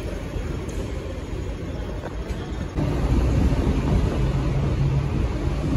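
Hong Kong double-decker tram running along its tracks, heard from the upper deck: a steady low rumble that grows louder about three seconds in, with a low hum joining it.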